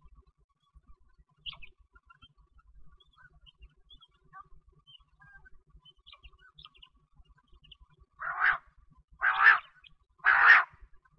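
Quail (bater) calling: faint scattered chirps, then three loud calls about a second apart near the end.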